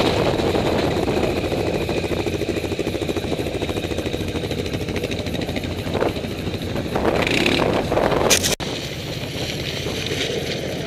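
ATV engine running steadily while riding over loose gravel. A rush of noise swells about seven seconds in. The sound breaks off sharply about eight and a half seconds in, then the engine drone carries on.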